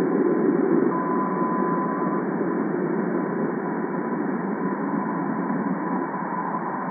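Sonified plasma wave data from NASA's Juno spacecraft, recorded in Jupiter's ionosphere and slowed down 60 times into the audible range. It plays as a steady rushing hiss, strongest in the low range, with a faint thin tone above it that is clearest a second or two in.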